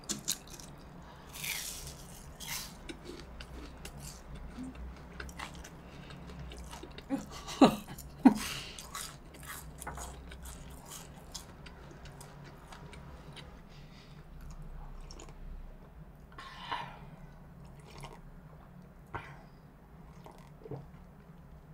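Close-up chewing and biting of crispy deep-fried pork cutlet (tonkatsu), with small crunches and scattered mouth clicks.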